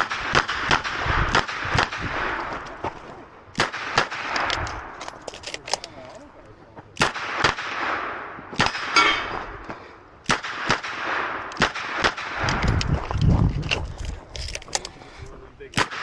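Smith & Wesson 929 9mm revolver firing a string of shots, spaced irregularly about a second or more apart, each followed by a ringing echo. Fainter, sharper reports fall between them.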